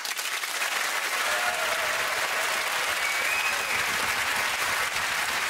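Studio audience applauding, starting suddenly and holding steady.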